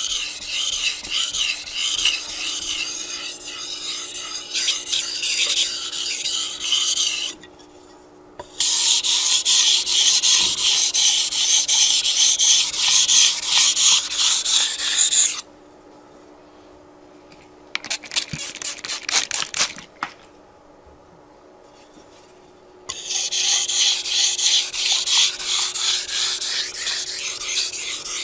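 Japanese chef's knife stroked over a fine #5000 whetstone in precision honing, a gritty scraping of steel on stone. Long stretches of scraping are broken by two pauses, with a few quick short strokes between them.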